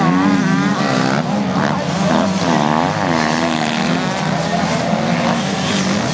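Several motocross bikes racing past together, their engines revving hard with overlapping notes that rise and fall as the riders ease off and open the throttle through the corner.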